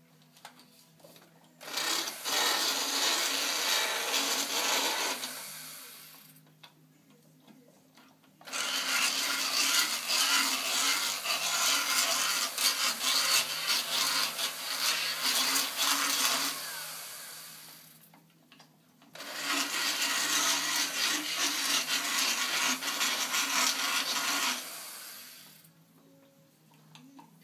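Motorised equine dental float grinding a Shire horse's teeth: three runs of steady grinding, about four, eight and six seconds long, with short quiet pauses between them.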